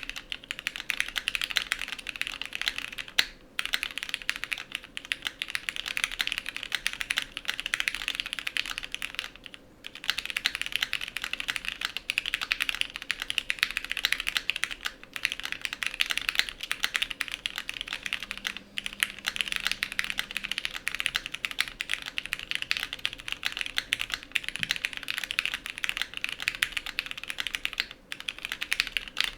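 Steady typing on a Matrix 1.2 OG mechanical keyboard: lubed Cherry MX Black retooled linear switches in a top-mount aluminium plate, under Cherry G80-1000 keycaps, giving a dense run of key clicks. The typing pauses briefly a few seconds in, again about ten seconds in, and once more near the end.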